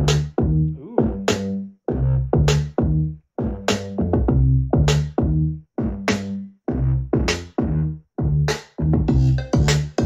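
Electronic music with a drum-machine beat and deep bass, played at maximum volume through a Soundcore Boom 2 Bluetooth speaker: sharp hits about twice a second over a heavy bass line.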